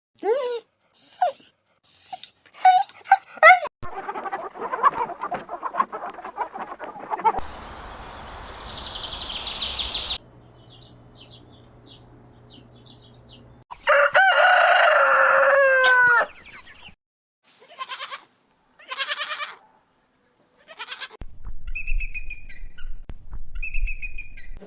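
A series of short chicken and rooster recordings cut together: short clucking and squawking calls, then a loud rooster crow lasting about two seconds partway through, followed by more short calls.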